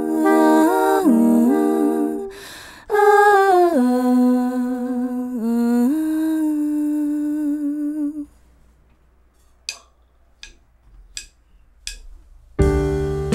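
Wordless jazz vocal held in long notes with soprano saxophone and trombone, gliding between chords. The music breaks off about eight seconds in. Four evenly spaced clicks follow, and a band with drums, upright bass and keyboard comes in near the end.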